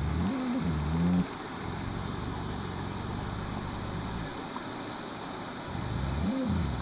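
Waterfall rushing steadily, with short bits of a person's voice in the first second and again near the end.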